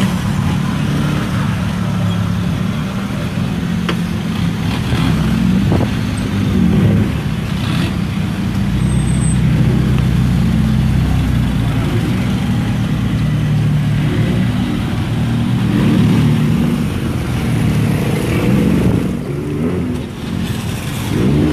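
Car and pickup engines running in slow, jammed traffic: a steady, loud low engine drone, with a brief lull near the end.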